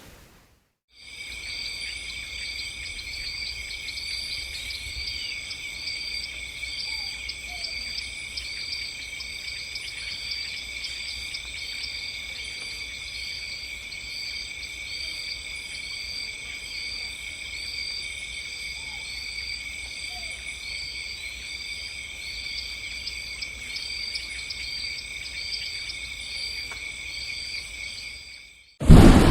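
Night insect chorus: crickets trilling steadily in several overlapping high-pitched tones, with a short chirp repeating about once a second over them. It starts about a second in and cuts off just before the end.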